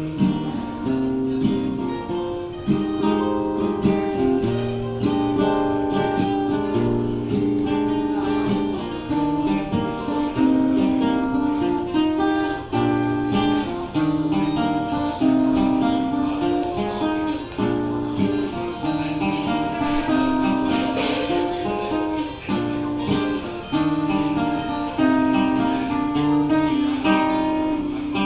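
Acoustic guitar playing an instrumental passage of a song, strummed and picked chords in a steady rhythm.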